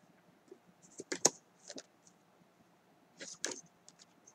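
Paper flashcards being handled and shuffled: a few short clicks and rustles, the sharpest about a second in and a pair more around three seconds in.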